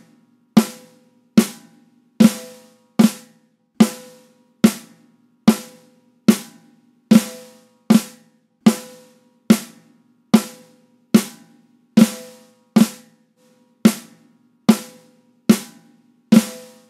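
Snare drum struck in evenly spaced single hits, a little over one a second, each ringing briefly with a buzz of the snares. It is heard as a compressed recording with the overhead condenser microphones brought up in the mix.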